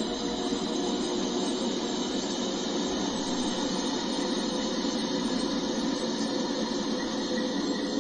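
Steady drone of many held tones with a hiss above it, unchanging throughout: the 'sound of planet Earth', presented as a real recording made by NASA.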